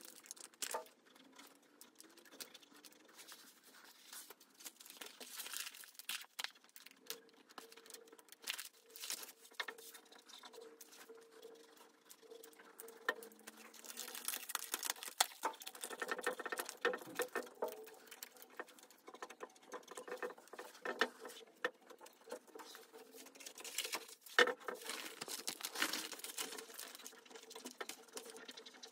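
Hands rubbing and pressing a sheet of self-adhesive vinyl wallpaper onto a tabletop: scratchy rubbing and crinkling of the plastic film with small taps and clicks. The rubbing gets louder about halfway through and again near the end.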